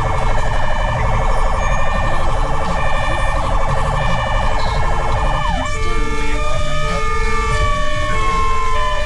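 Fire rescue truck's sirens sounding while driving: a fast warbling yelp that switches about halfway through to a single long tone slowly falling in pitch, with a second, pulsing on-off siren tone repeating throughout and the truck's low engine rumble underneath.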